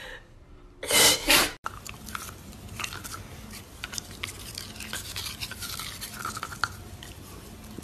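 A dachshund chewing a plastic toothbrush: an irregular run of small clicks and scrapes as its teeth work the handle and bristles. Just before that, about a second in, a French bulldog lets out two loud blasts of breath through its nose.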